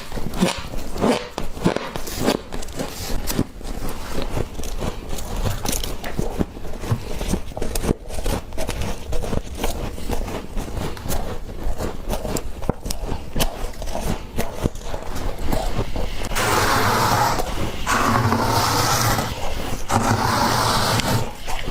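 Freezer frost being scraped and crunched: a quick run of crisp crackles and scrapes, turning about three-quarters of the way through into a denser, steadier rasping.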